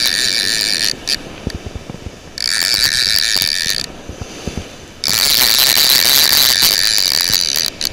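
Penn No. 77 Sea Hawk direct-drive casting reel with its bait clicker engaged, ratcheting fast as the handle is cranked to wind line in. Three spells of cranking with short pauses: one that stops about a second in, one from about two and a half to four seconds, and a longer one from about five seconds to near the end.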